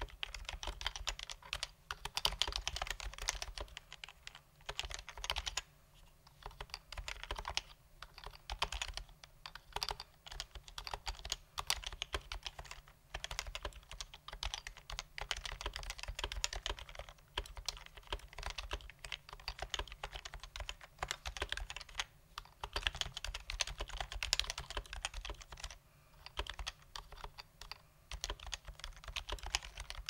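Touch-typing on an HHKB Pro 2 with stock, unlubricated Topre switches: rapid key presses in runs, broken by a few short pauses.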